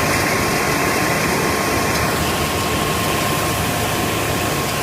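Stone crusher machine running: a loud, steady mechanical noise with a faint constant tone through it.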